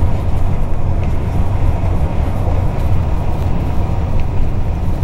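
Steady low rumble of a vehicle driving at highway speed: engine and road noise, strongest in the low drone, with an even hiss of tyres on pavement.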